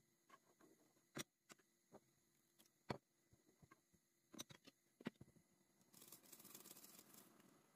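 Faint, scattered clicks and taps of a spoon in a pot, with a short soft rustle about six seconds in, as rice is stirred while it toasts in butter for pilaf.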